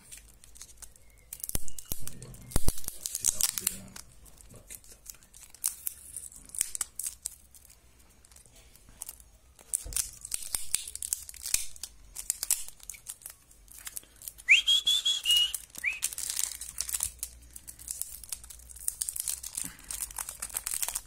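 Clear plastic wrapping around a stack of cards crinkling and tearing as hands work it open, in repeated rustling bursts. About two-thirds of the way through come a few short, high, rising squeaks.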